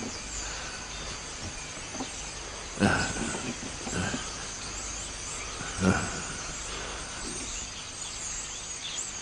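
Outdoor ambience: faint bird chirps over a steady hiss, broken by a few sharp knocks about three seconds apart.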